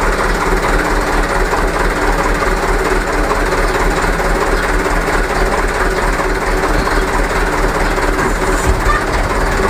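Light diesel truck engine running steadily as the truck creeps forward at low speed.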